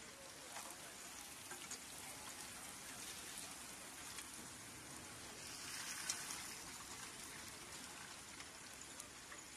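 Hot oil sizzling and crackling as battered vegetable strips fry in a continuous conveyor fryer: a steady hiss with small pops, swelling briefly about six seconds in.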